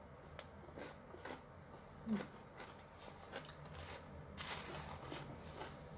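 Close-up eating sounds of someone eating with her fingers: soft chewing and lip smacks with small mouth clicks. A short hum about two seconds in and a brief rustle a little past the middle.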